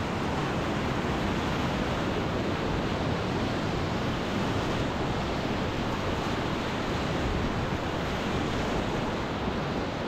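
Steady rush of whitewater rapids on a river, a constant even noise without breaks.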